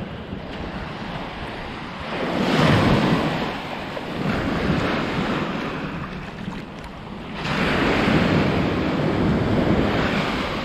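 Baltic Sea surf washing over the shallows at the shoreline, swelling twice: about two seconds in and again about seven and a half seconds in. Wind is on the microphone.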